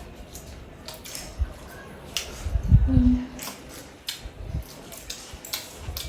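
Eating sounds from a plate of chicken biryani: scattered small clicks and taps, with a short low hum of a voice about three seconds in.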